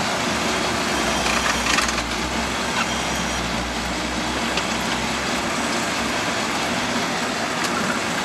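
All-terrain vehicle on low-pressure tyres driving through deep snow, heard from inside the cab: the engine runs steadily under a constant wash of noise, with a few short knocks about two seconds in.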